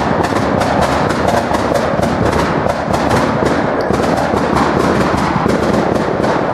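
A string of firecrackers going off in a rapid, steady crackle of sharp bangs, about six or seven a second, that cuts off abruptly at the end.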